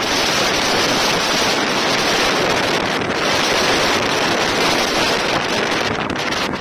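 Steady rush of wind buffeting the microphone and water rushing along the hull of an inflatable speedboat running at speed over choppy water.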